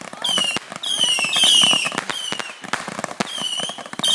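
Fireworks cake firing: rapid sharp pops and crackles mixed with several short, high whistles that each dip slightly in pitch.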